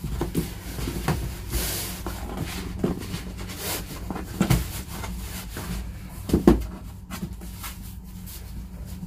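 Handling noise as a cotton T-shirt is pulled and stretched over a cardboard box: cloth rustling and scattered knocks of the box on the table, the loudest about six and a half seconds in. A steady low hum runs underneath.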